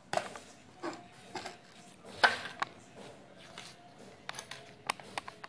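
Plastic scraper pressing and working soft dough on a plastic cutting board: a scatter of soft squishes and light knocks and taps, the loudest about two seconds in.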